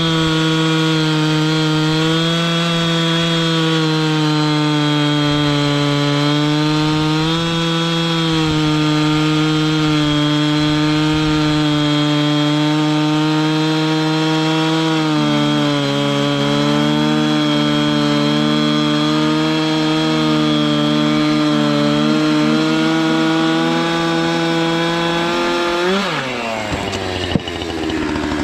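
Chainsaw mill ripping a log lengthwise into a board, the saw engine running steadily under heavy load with slight dips in pitch. Near the end the engine revs up sharply as the cut finishes, then drops away.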